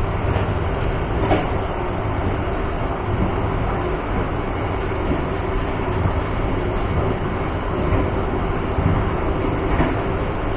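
Passenger train coach running along the track: a steady rumble of wheels on rail with a faint steady hum, and a few short knocks, one about a second in and one near the end.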